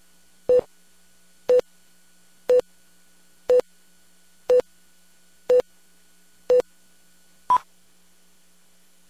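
Broadcast countdown-leader beeps: a short tone once a second marking each number of the countdown, seven at one pitch and a final beep higher in pitch about seven and a half seconds in.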